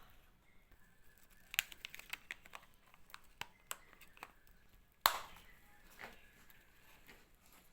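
A string of light clicks and taps for a few seconds, then one sharp knock about five seconds in.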